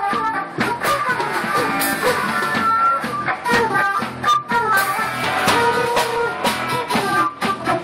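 A live rock band playing an instrumental break: a flute plays the lead line over guitar, upright bass and a drum kit.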